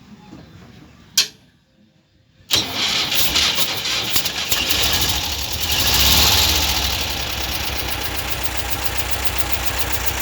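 A sharp click about a second in, then the Volkswagen Kombi's air-cooled flat-four engine starts, revs up briefly and settles into a steady idle, running with its belt removed. With the dry, cracked belt off, the noise the engine had been making is gone.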